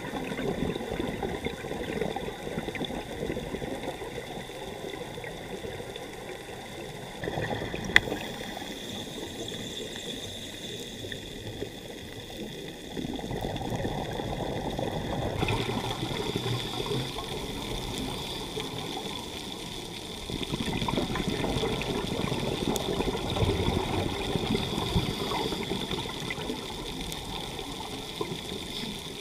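Muffled underwater rushing and hiss of seawater picked up by a diver's camera, with one sharp click about eight seconds in. The level shifts a few times.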